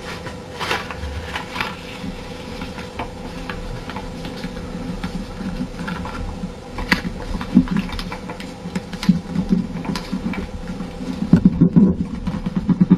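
Sheet of paper being folded and creased by hand, with short crinkles and clicks and irregular rubbing and pressing as the folds are smoothed flat against the tabletop, busiest near the end. A thin steady hum runs underneath.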